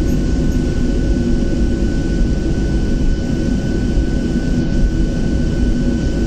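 Boeing 737-700's CFM56-7B jet engines running at taxi idle as the airliner taxis, heard inside the cabin as a steady low rumble with a thin, steady whine above it.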